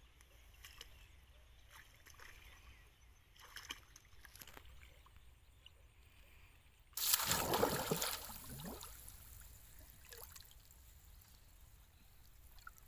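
Shallow pond water splashing and sloshing as a woven bamboo fish basket is plunged in while wading. One sudden loud splash comes about seven seconds in and dies away over about two seconds, with faint sloshing and trickling before and after.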